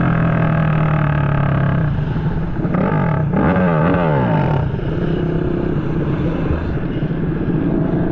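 Racing motorcycle engine running at a steady pitch, its revs rising and falling quickly several times for about two seconds in the middle before settling again.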